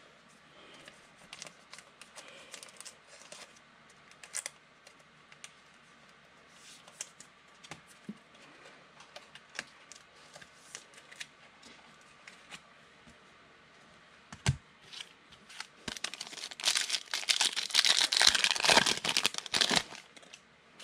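Foil wrapper of a football trading-card pack crinkling and tearing open, a loud rustle lasting about three seconds near the end. Before it there are only faint scattered clicks of handling.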